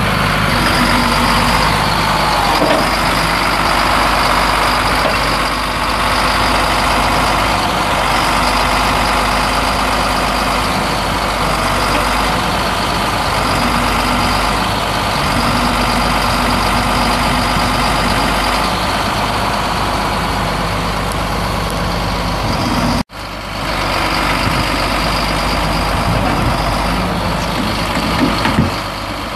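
Heavy truck's diesel engine idling steadily, with one sudden brief dropout about three-quarters of the way through.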